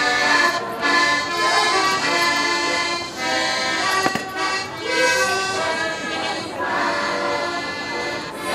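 Czech folk dance music led by an accordion, playing continuously in phrases.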